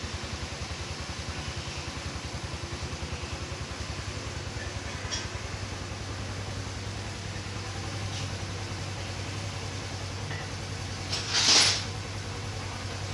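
Suzuki GR150's single-cylinder four-stroke engine idling with a steady low pulse. About eleven seconds in, a loud hiss lasts about a second.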